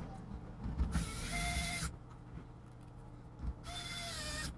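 A small electric motor tool run in two short bursts of under a second each, one about a second in and one near the end, each giving a steady whine with a hiss.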